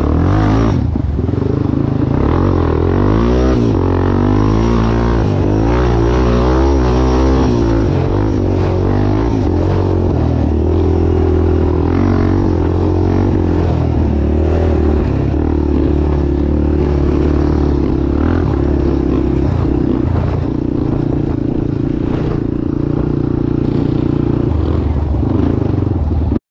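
Off-road vehicle engine running under way, loud and steady, its pitch wavering up and down over the first several seconds and then holding steadier.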